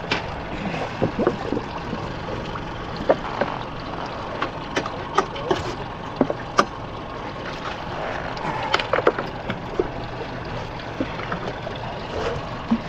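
Kawasaki SX-R 1500 stand-up jet ski's engine running steadily, with irregular sharp knocks and slaps as the hull meets choppy sea water.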